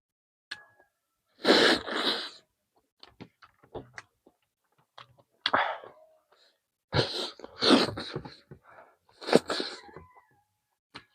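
A person eating chicken close to the microphone: chewing and mouth sounds with small clicks, broken by several louder, breathy bursts.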